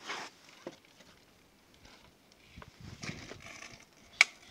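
Handling noise: a brief rustle at the start, more rustling and knocking around three seconds in, and one sharp click a little after four seconds, the loudest sound.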